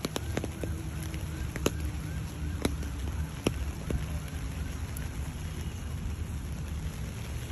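Steady rain falling on paving and foliage over a low rumble, with a few sharp ticks of drops scattered through.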